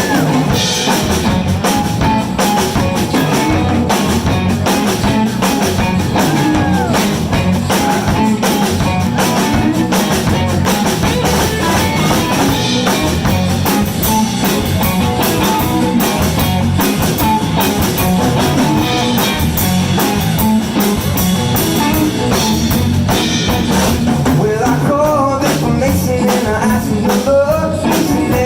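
Live blues band playing an instrumental passage, with electric guitar over a drum kit.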